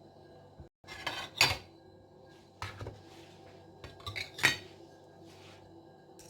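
Cutlery clinking and scraping against a plate in several short strokes, as a portion of baked stuffed eggplant is cut into to be tasted; the loudest strokes come about a second and a half in and again around four and a half seconds.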